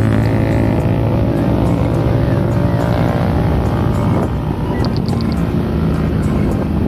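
A vehicle engine running steadily with a low drone. A quick run of about five high pips comes about five seconds in.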